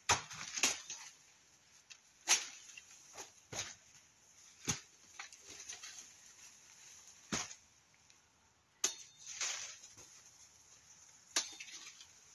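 Frost-killed banana leaves being cut and pulled down: sharp snaps every second or two, a few trailing into longer crackling rustles.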